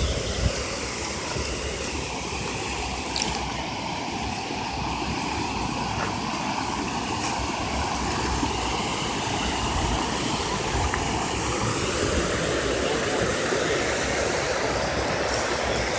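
Steady rush of river water spilling over a low-water concrete bridge, with a low thump about half a second in.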